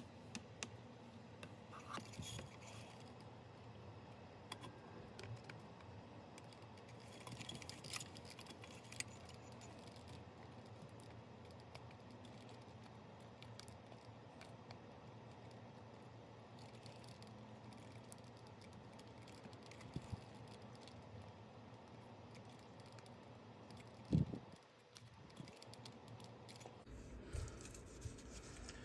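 Faint clicks and light rattling from a circuit board and soldering iron being handled inside a small amplifier's chassis, over a low steady hiss, with one louder knock about 24 seconds in.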